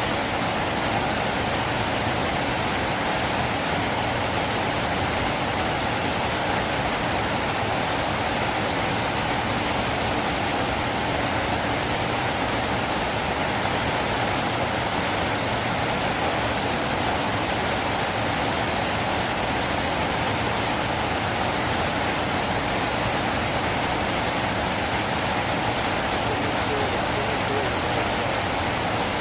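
River water flowing: a steady, unbroken rush of moving water.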